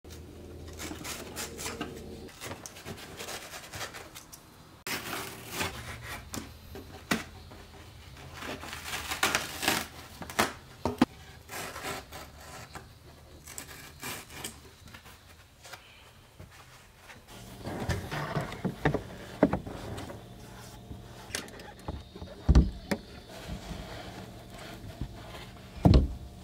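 A knife blade scraping and cutting through the carpet and felt padding of a car's rear deck panel in many short, uneven strokes. Two loud knocks come near the end.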